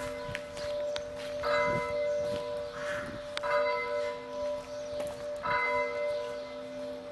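A church bell tolling slowly: three strikes about two seconds apart, each one ringing on into the next.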